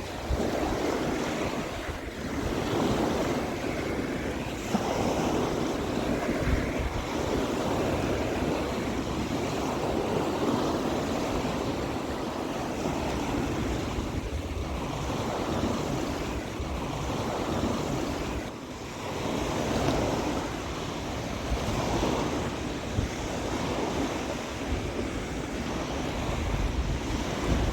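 High ocean surf breaking and washing on a beach, swelling and easing every few seconds, with strong wind buffeting the microphone.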